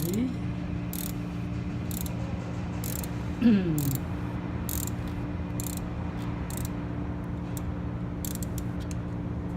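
Ratchet clicking in short, irregular strokes as a thread tap is backed out of a freshly tapped stripped bolt hole, over a steady low hum. A brief falling squeak sounds about three and a half seconds in.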